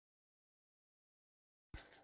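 Dead silence with the sound track muted, until it cuts back in near the end with a click and the scraping of a silicone spatula mixing crumbly bun dough in a plastic bowl.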